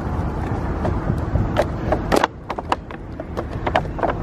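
Steady street traffic noise that drops away a little after two seconds, followed by a run of sharp clicks and crinkles from shopping bags being handled.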